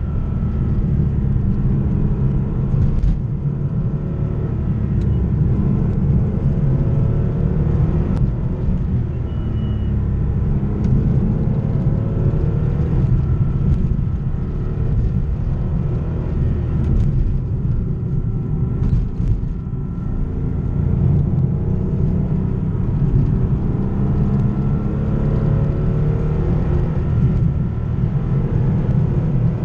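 Porsche 964 Carrera 2's air-cooled 3.6-litre flat-six heard on board while driving, its note climbing with revs and dropping back again and again through the gears.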